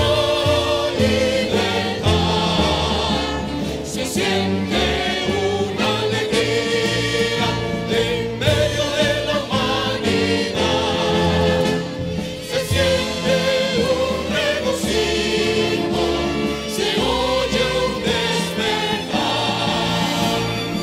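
Symphony orchestra and choir performing an anthem: choral singing over strings and flutes.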